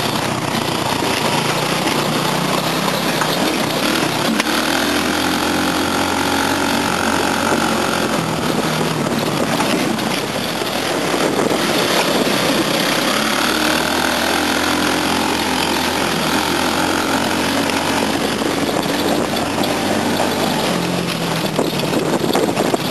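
A 10-horsepower go-kart engine running under way, its pitch rising and falling twice as the throttle is worked, with rattling and wind noise from the kart bouncing over rough grass.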